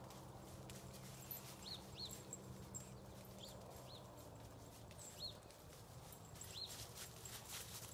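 Soft, scattered crunching of a puppy's paws on frosted clover and fallen leaves. About seven short, high chirps come in pairs and singles over it, with a low steady hum underneath.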